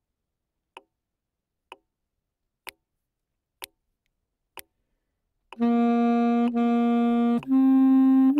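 Metronome count-in of sharp clicks about one a second, then a tenor saxophone comes in with the melody about five and a half seconds in: one note sounded twice and held, then a slightly higher note.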